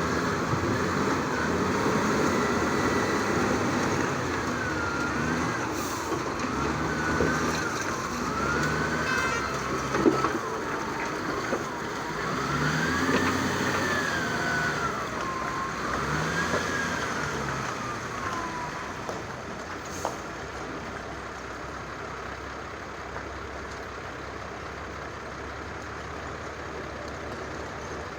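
A siren wailing, slowly rising and falling in pitch, over steady vehicle noise; the wail stops about two-thirds of the way through, leaving the vehicle noise.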